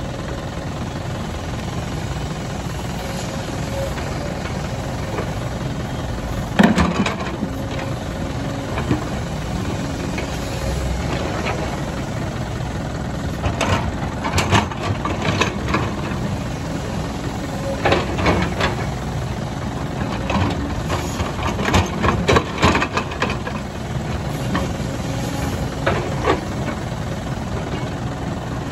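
JCB 225 LC tracked excavator's diesel engine running steadily, with sharp knocks and clanks at irregular moments. The loudest knock comes about seven seconds in, and more come in clusters through the second half.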